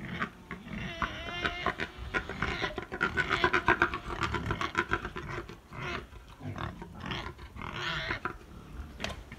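Pigs grunting rapidly, with squeals mixed in and the loudest run from about two to five seconds in. A boar is courting at the fence, with a young gilt coming into heat on the other side.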